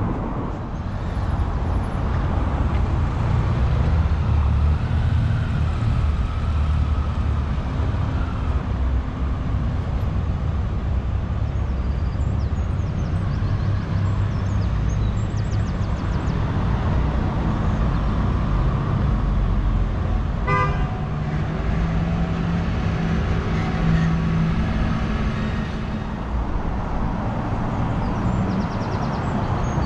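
Street traffic: a steady rumble of passing vehicles, with a short vehicle horn toot about two-thirds of the way through.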